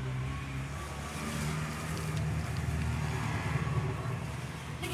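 A motor vehicle's engine running steadily, its low hum lifting slightly in pitch about a second in.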